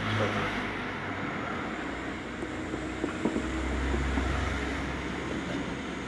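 Steady low rumble of a motor vehicle with traffic noise, deepening about halfway through, with a few light knocks in the middle.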